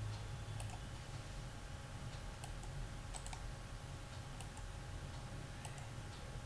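Faint, unevenly spaced clicks, about five or six, over a low steady hum.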